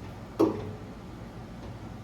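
A single sharp click about half a second in, with a brief ringing tail, over a faint steady background hum.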